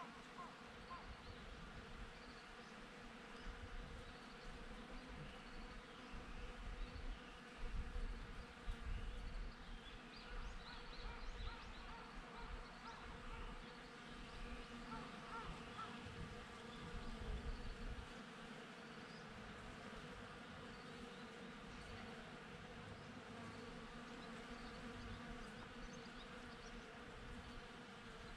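Honeybees buzzing steadily as they forage among blossoms, a continuous hum. Louder low rumbling comes and goes for several seconds in the middle.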